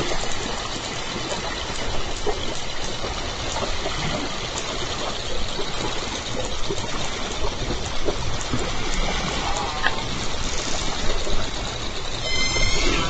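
Underwater hiss picked up by a hydrophone, with scattered faint clicks. Near the end a J pod southern resident killer whale gives a short call with several stacked tones.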